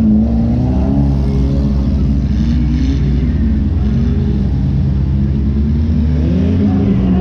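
Compact demolition-derby car's engine revving up and down, heard from inside the car.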